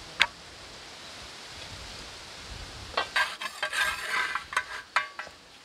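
Metal tongs scraping and clinking against a metal griddle as a bhakri flatbread is worked on it over a wood fire: a single sharp tap just after the start, then a busy run of scrapes and clinks about three seconds in, lasting about two seconds.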